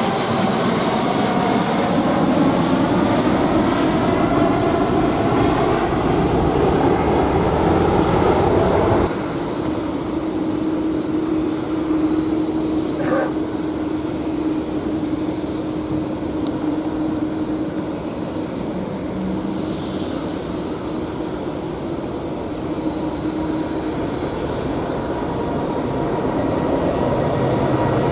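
Boeing 747 freighter's four jet engines at takeoff power, a loud rushing noise with sweeping rising and falling pitch lines. About nine seconds in it drops abruptly to a quieter, steady hum.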